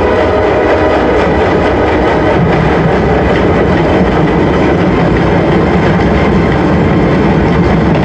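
Film soundtrack played loud through cinema speakers: a dense, steady low rumble with held tones over it.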